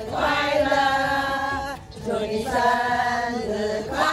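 A group of women singing together without accompaniment, in two long held phrases with a short breath between them about two seconds in.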